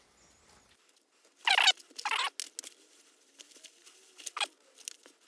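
Dry, dead spider plant leaves being pulled off by hand: two short rustles about one and a half and two seconds in, then a few faint scattered crackles.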